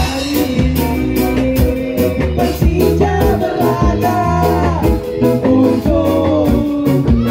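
Live band playing a ska tune: electric guitars, bass and drum kit with a steady, regular beat.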